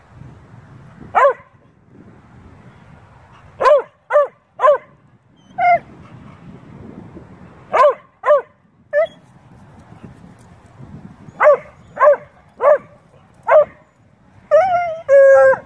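Play barking from a pair of dogs, a beagle-shepherd mix and a bluetick coonhound: short sharp barks come singly or in quick runs of three or four. Near the end the barking gives way to a longer wavering, yodel-like call.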